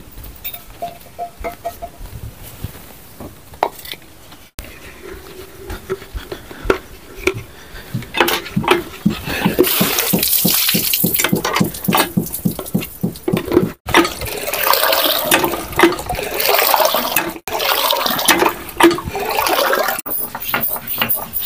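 Hand pump being worked to fill a pot: a fast, even knocking rhythm, then a steady rush of water pouring into the pot.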